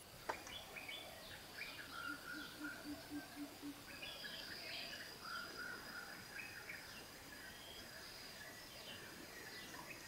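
Forest birds calling and chirping at a distance over a steady high insect whine, with a short run of about six low, evenly spaced notes two to three and a half seconds in.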